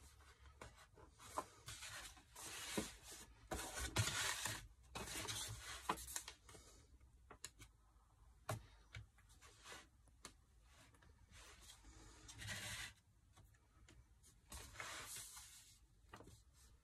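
Paper rustling and sliding as a concertina sketchbook is folded and moved on a table, mostly in the first half, followed by scattered light taps and rubs as a small wooden letter stamp is inked and pressed onto the page.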